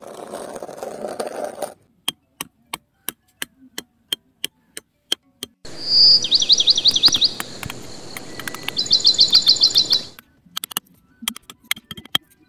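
A small bird sings two bursts of quick repeated chirps over a steady hiss. Before and after them come runs of sharp clicks, about three a second.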